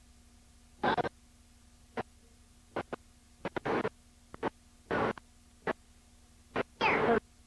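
Damaged home-video soundtrack: a steady electrical hum broken by short, irregular crackling bursts and clicks that cut in and out, the signature of a faulty audio recording.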